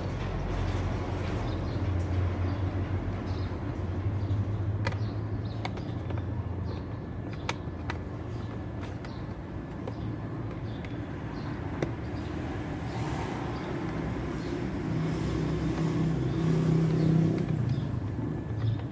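Steady low hum under a series of sharp clicks and knocks: plastic clips and trim being pried loose while a car's dashboard is taken apart around the instrument cluster. A rougher, louder drone comes in toward the end.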